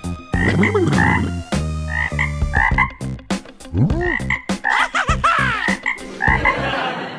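Toad croaking again and again in short, quick calls.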